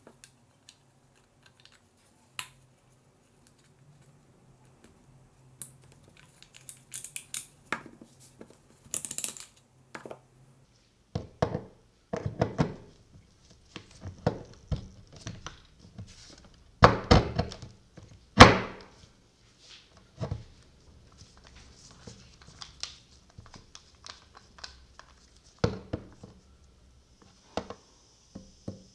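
Plastic gearbox parts of a cordless drill being handled and fitted together by hand: scattered clicks and knocks of hard plastic, with the loudest pair of thunks a little past halfway.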